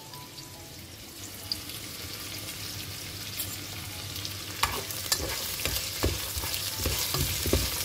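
Sliced onions frying in oil in a pot, with a steady sizzle. From a little over halfway, a spatula stirs them, scraping and knocking against the pot several times a second.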